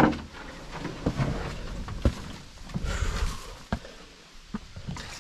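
Footsteps on a forest trail by someone carrying a canoe overhead on a portage, falling about once a second, with a heavy thump at the start.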